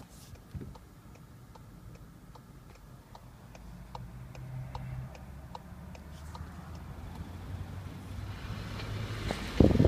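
Volkswagen Golf 7 1.4 at a low hum, with an even ticking about one and a half times a second over it. Just before the end, a sudden louder sound starts.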